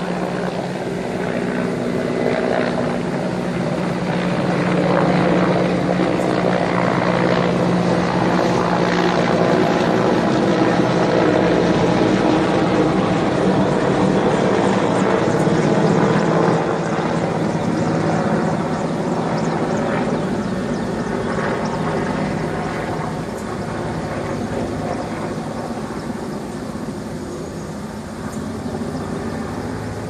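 Helicopter flying nearby: a steady rotor and engine drone that grows louder over the first few seconds, holds, then slowly fades in the second half.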